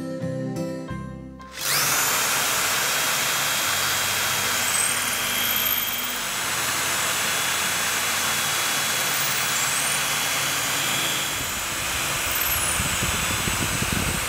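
Acoustic guitar music stops about a second and a half in. After that a corded electric drill runs steadily, boring holes into the end of a birch log.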